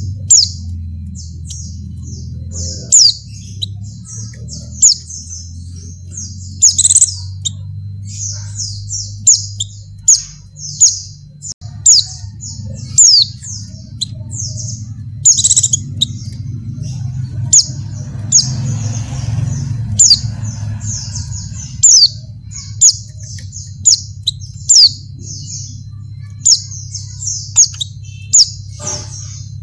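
White-eyes (pleci) calling in a rapid stream of short, high chirps and quick downward-slurred notes, several a second, over a steady low hum. The uploader presents the calls as a female in breeding condition calling males.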